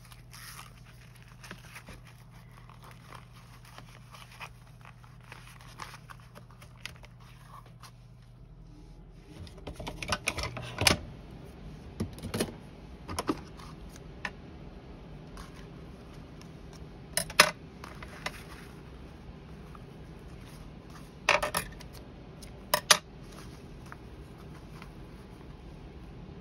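Hands working at a craft table, winding twine around the brad closure of a paper document holder: light rustles and ticks, then several sharp clicks and knocks spread through the second half.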